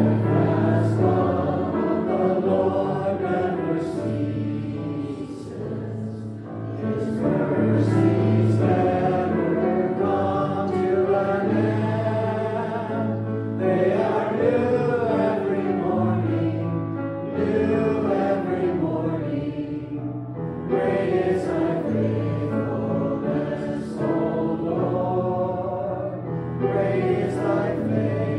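A congregation singing a hymn together, with piano accompaniment sustaining low notes beneath the voices.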